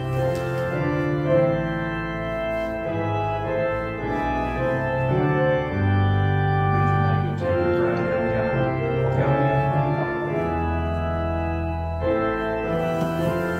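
Organ playing slow, held chords over sustained bass notes: the recessional music as the newly married couple walk out.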